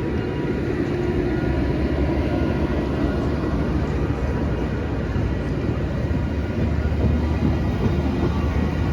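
A train running by: a steady rumble, growing slightly louder near the end.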